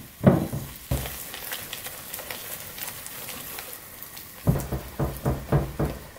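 Strongly carbonated sparkling water fizzing in chickpea-flour batter in a glass bowl. Near the end, a whisk beats it against the bowl with quick repeated strokes.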